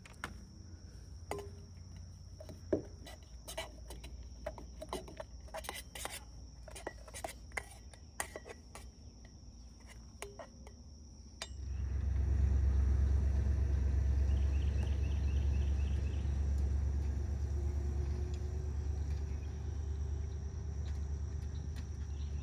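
Outdoor ambience with a steady high insect drone. For the first half, scattered light clicks and taps sound over it. About halfway through, a loud, even low rumble of wind on the microphone sets in and continues.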